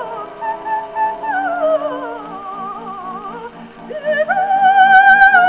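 Early acoustic recording of an elderly soprano singing opera with accompaniment. She sings fast descending runs with vibrato, then jumps to a loud held high note about four seconds in. The sound is narrow and cut off above about 4 kHz.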